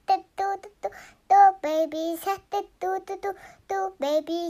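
A high, child-like voice singing a run of short, quick notes.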